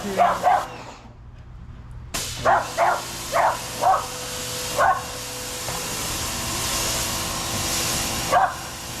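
Pressure washer starting up about two seconds in, its spray hissing steadily over the hum of its pump motor. A dog barks sharply over it, twice at the start, then five times in a row and once more near the end; the barks are the loudest sounds.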